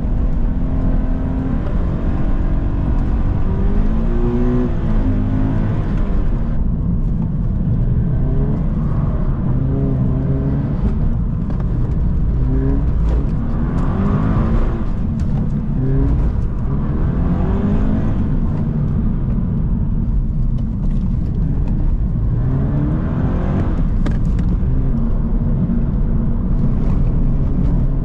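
Subaru BRZ's 2.0-litre flat-four engine heard from inside the cabin, its pitch climbing and dropping back again and again as the car is driven hard along a winding road. Steady road and wind noise runs underneath.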